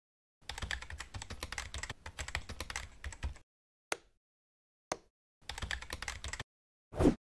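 Computer keyboard typing in two quick runs of keystrokes, with two single clicks in between. A short whoosh begins near the end.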